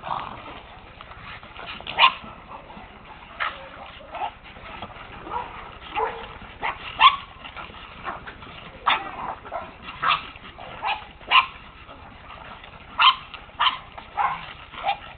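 Boston terriers barking and yipping at play, in short, irregularly spaced bursts.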